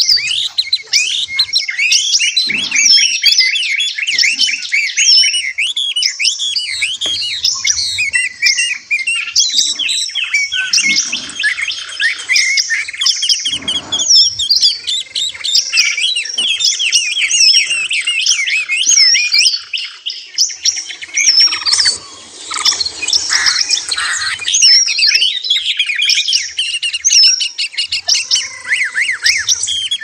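Many small caged songbirds chirping and singing at once, a dense, continuous chorus of quick high notes and trills that thins briefly about two-thirds of the way through.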